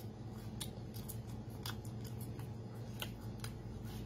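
Crisp crunching of fried silkworm pupae being chewed: irregular sharp crackles about every half second, over a steady low hum.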